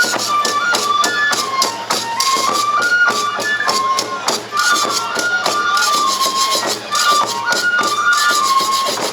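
Shishi-odori festival music: a bamboo flute playing a stepping melody over fast, steady percussion beats.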